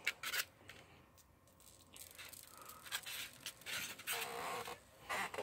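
Faint handling noises of a cardboard and foam packaging insert: light scraping and rubbing, with a few short clicks near the start.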